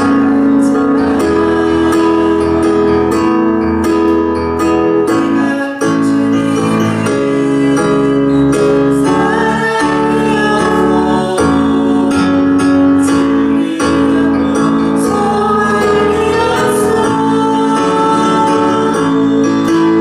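Worship music from a praise team: a woman singing a worship song over continuous band accompaniment.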